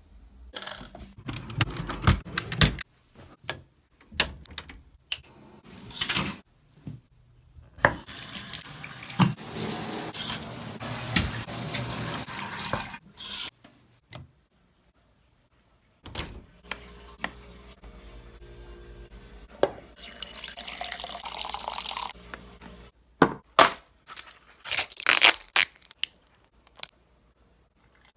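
Water running and splashing, as from a tap into a sink, in several short stretches broken by pauses, with scattered knocks and clicks of handling.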